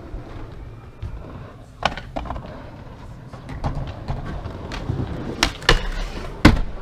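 Skateboard wheels rolling on concrete, broken by several sharp clacks as the board pops and strikes a metal handrail during a rail trick; the loudest impact comes near the end.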